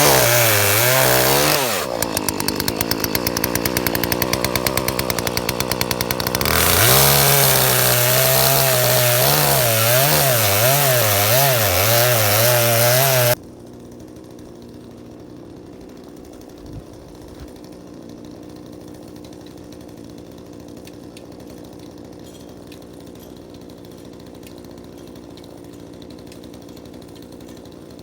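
Poulan Pro gas chainsaw with an 18-inch bar running at high revs with a wavering pitch, dropping to a lower, pulsing idle for about four seconds, then revving up again. About halfway through the engine cuts off suddenly, leaving only faint background.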